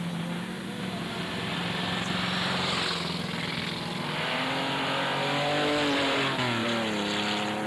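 Race car engines running hard on a dirt track, several engine notes over a rushing noise, getting louder as one car comes close; the engine note drops in pitch near the end as it goes by.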